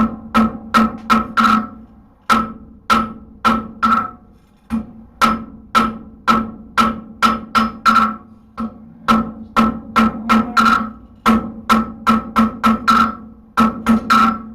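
Hand hammer striking hot steel on an anvil, about three blows a second in runs broken by short pauses, each blow leaving a short ringing tone. These are light finishing blows cleaning up the scooped blade of a hoof pick forged from a horseshoe.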